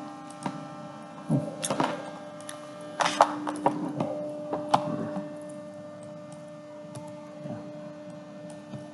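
A few clicks and knocks, louder about one and a half and three seconds in, over a steady electrical hum.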